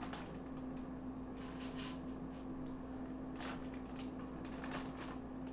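Plastic freezer bag crinkling in several short rustles as raw chicken breasts are handled and packed into it, over a steady low hum.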